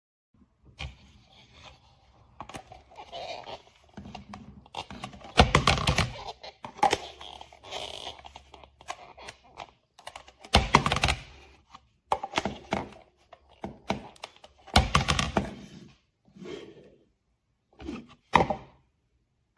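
Hard plastic knocks, clicks and scraping as a plastic diffuser attachment is handled and pushed against a hair dryer's nozzle. There are three louder thunks among irregular smaller clatters.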